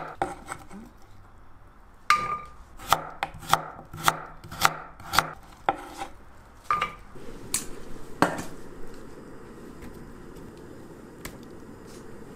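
Kitchen knife slicing Korean radish on a wooden cutting board, the blade knocking on the board with each cut, roughly two strokes a second. There is a short pause near the start, and the cutting stops about two-thirds of the way through.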